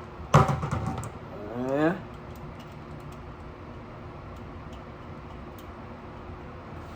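A man's voice makes a short wordless outburst near the start, then a sound that rises in pitch, like a groan or sigh. After that only a steady faint hum remains, with a few light ticks.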